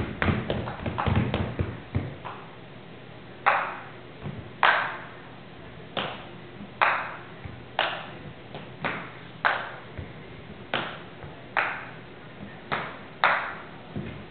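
A small ball being batted back and forth along a wooden floor with large paddles: sharp hits about once a second, each ringing on in the hall's echo. The first couple of seconds hold a quicker scatter of lighter taps.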